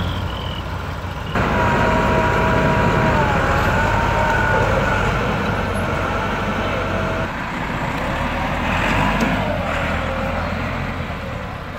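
Diesel tractor engines running hard under load as tractors pull a loaded sugarcane trolley out of deep mud. A high wavering tone rides over the engines from about a second and a half in until about halfway through.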